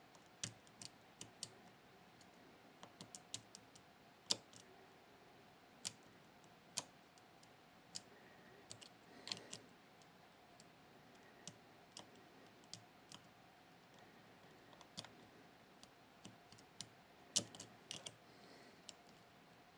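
Irregular small sharp clicks from a pick working the pins of a Miwa Kaba Star Orion (JC) dimple lock under tension, with a cluster of clicks near the end.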